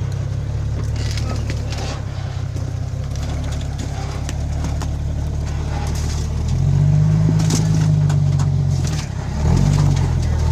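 Off-road vehicle engine running at low revs while crawling over rocks, then revved up about two-thirds of the way through, easing off briefly and revving again near the end. Scattered short crunching clicks run over it.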